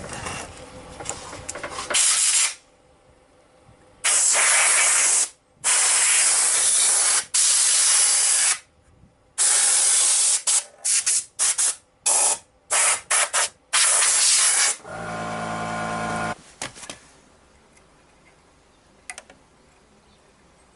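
Compressed-air blow gun blasting dust out of a model steam boat's cabin: long loud hisses of air, then a run of short quick bursts. After that comes a steady pitched hum for about a second and a half.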